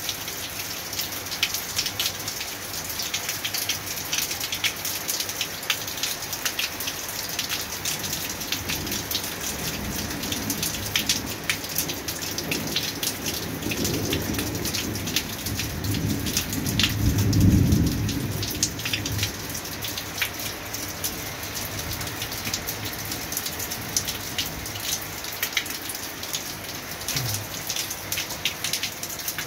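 Rain falling steadily and pattering on surfaces during a thunderstorm. A low rumble of thunder swells through the middle, loudest about two-thirds of the way in, then dies away.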